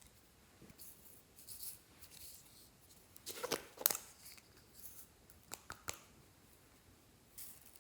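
Glossy slime being squeezed and stretched by hand, giving off faint, irregular sticky crackles and small clicks, with a louder burst of crackling about halfway through.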